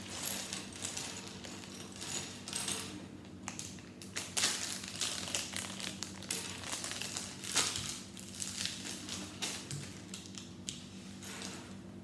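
Loose plastic Lego pieces from an opened polybag being handled and tipped out: irregular small clicks and rattles, with a few louder clusters about 2.5, 4.5 and 7.5 seconds in.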